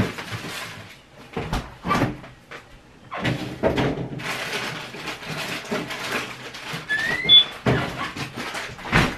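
Kitchen handling sounds: a few sharp knocks and clacks, then a steady hissing rustle with further knocks and a brief rising squeak near the end.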